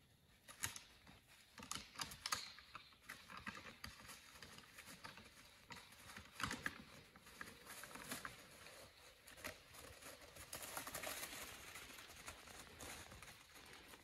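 Faint, irregular clicks and clacks of white-tailed bucks' antlers striking as they spar, loudest in the first few seconds and again about six seconds in, followed by rustling near the end.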